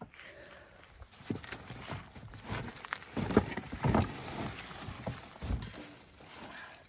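Cardboard and foam packaging being handled and pulled apart: irregular rustling, scraping and knocks, busiest and loudest a few seconds in.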